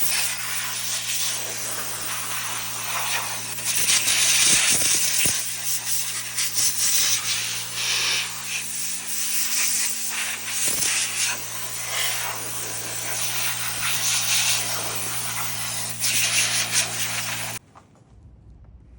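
Steady hissing, like air being blown, over a low electric hum. It swells and eases several times, then both stop abruptly near the end.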